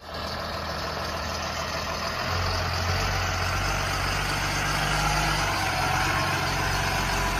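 School bus engine running as the bus drives slowly past, growing gradually louder, its low engine note stepping up about two seconds in.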